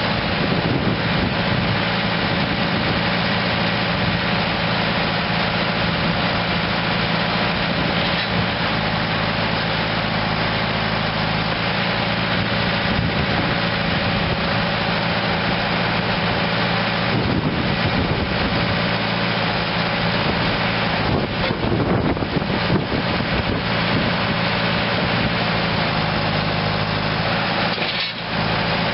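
Deutz four-cylinder turbo diesel engine of a 2006 Vermeer RT650 trencher, running steadily at a constant speed.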